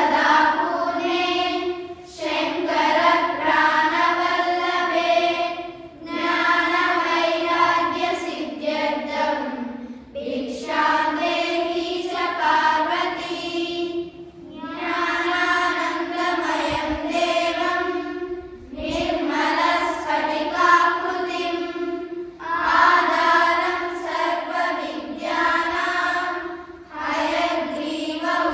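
A group of schoolchildren chanting shlokas in unison on a fairly steady pitch, in phrases of about four seconds separated by short breath pauses.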